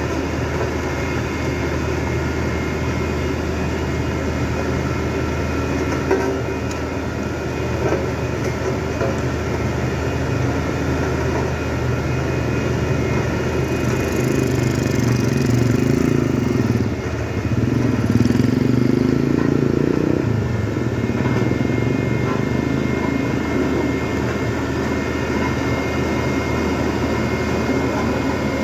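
Motor vehicle engines running steadily, growing louder for several seconds in the middle, dipping briefly, then swelling again before settling back.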